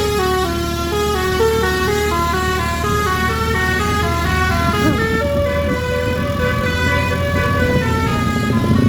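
A bus's 'telolet' musical horn plays a tune of quick stepped notes, changing a few times a second. The bus engine runs underneath.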